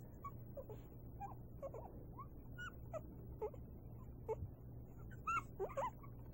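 Young puppies whimpering: a string of short, high squeaks and whines, with the loudest few bunched together near the end.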